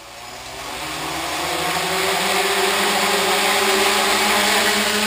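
Small tricopter's three electric motors and propellers spinning up, growing louder over the first couple of seconds, then running with a steady buzzing whine.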